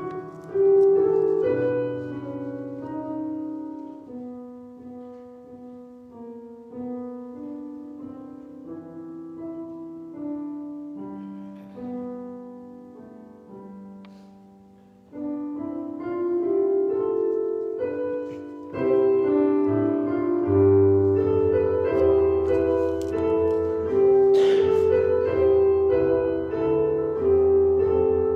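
Piano music: a soft, slow passage that grows louder about halfway through, with deep bass notes joining.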